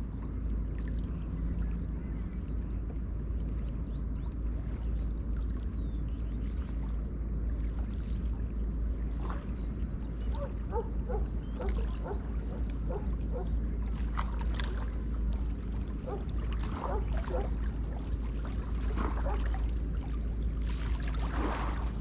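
River water lapping and splashing against the shore, over a steady low wind rumble on the microphone. Through the middle comes a scattering of short, pitched, chirp-like sounds and small splashes.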